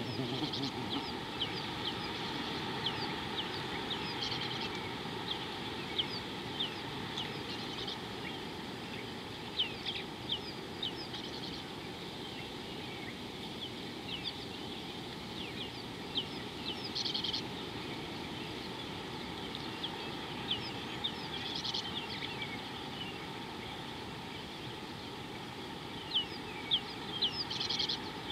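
Wild birds chirping and calling: many short, high chirps scattered throughout, with a few denser flurries of calls, over a steady low background rush.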